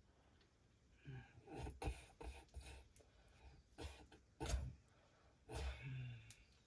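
A man's low grunts and heavy breaths in a string of short bursts, the sharpest about four and a half seconds in and a longer one near the end. They come from a man in a jhakri (Nepali shaman) trance.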